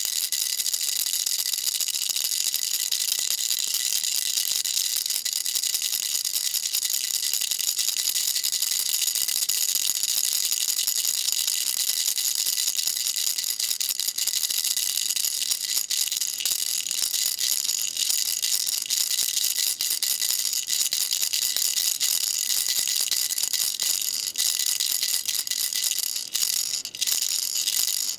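Baby rattle shaken continuously: a dense, steady, high-pitched patter of small beads clicking inside it, easing briefly near the end.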